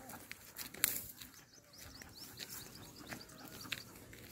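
Irregular footsteps and the rustle of dry grass on a narrow dirt trail, with one louder crunch about a second in. Faint bird chirps sound in the second half.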